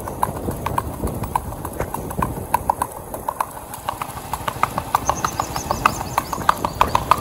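A ridden mare's hooves clip-clopping on a wet paved road at a brisk gait: a quick, even run of sharp knocks, several a second.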